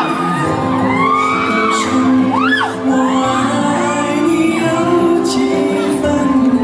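Live pop song played over a PA with a male singer, while fans scream and whoop over it in a large hall; one sharp rising scream about two and a half seconds in.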